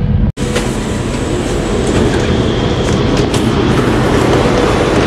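Steady rumble and hiss of a high-speed train standing at a station platform, with a faint steady hum. The sound drops out sharply for an instant a third of a second in.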